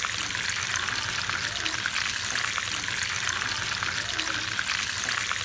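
Breaded chicken nuggets deep-frying in hot oil: a steady sizzle with many small crackling pops.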